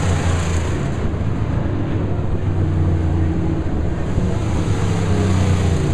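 Dirt-track race car engine running, a steady low drone.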